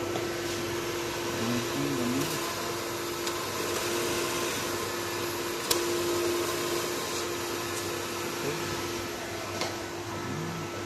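Steady mechanical whir with a constant hum tone, like a fan or blower running, and one sharp click a little over halfway through.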